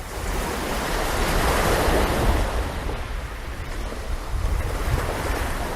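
Water washing with wind buffeting the microphone: a steady rush with a heavy low rumble that swells about a second or two in and then eases.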